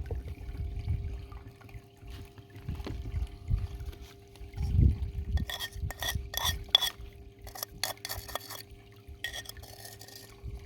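Water pouring and sloshing as paydirt is washed through a small tool box sluice box, over a faint steady hum. A quick run of short, sharp strokes comes about five to eight seconds in, with more just before the end.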